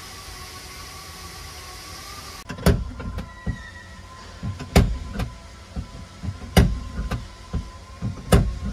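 Steady background noise with a faint hum for about two seconds. Then hammering on a car's sheet-metal body panel during dent repair: four heavy blows about two seconds apart, with lighter taps between.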